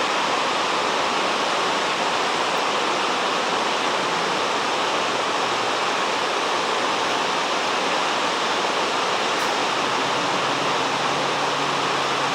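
Steady, loud rush of water pouring down the Iguazu Falls waterfall.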